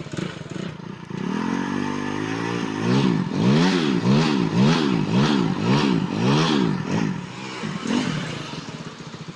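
Motorcycle's air-cooled single-cylinder engine running and being revved. It climbs in revs, then is blipped up and down about twice a second for several seconds before dropping back to idle.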